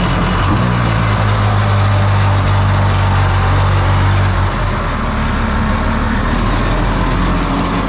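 Home-built jet boat engine on its first run, running loud and steady through its water-injected exhaust. Its low note swells for about four seconds near the start, then settles back.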